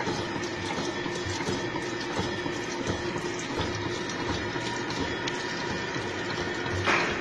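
Bevel gear generating machine cutting teeth in a steel bevel gear, running steadily with a low hum and a higher whine, irregular low knocks and cutting oil splashing over the cut. A short louder burst comes near the end.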